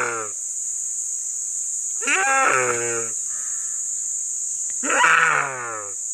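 Rusa deer stag screaming while being eaten alive by a Komodo dragon: repeated distressed calls about every two and a half seconds, each about a second long and falling slightly in pitch. A steady high hiss runs underneath.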